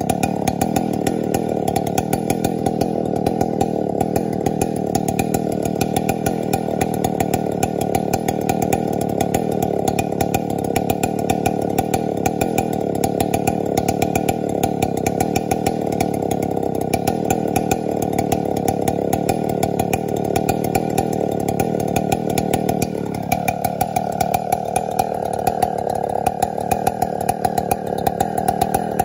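Chainsaw on a Granberg Alaskan chainsaw mill running continuously at high revs. About 23 seconds in its pitch drops sharply and settles lower.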